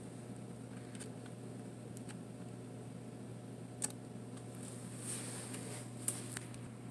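A few faint, sharp clicks from the Olympus Camedia C-4040Z camera and the hand at its controls, the loudest just under four seconds in and another just after six, with a brief rustle around five seconds, over a steady low hum.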